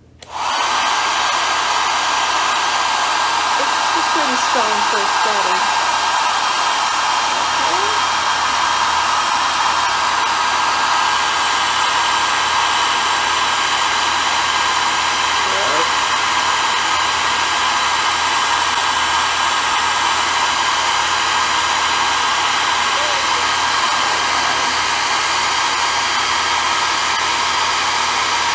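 Dyson-style hair dryer switched on at its first, lowest setting and blowing steadily: a rush of air with a steady high motor whine.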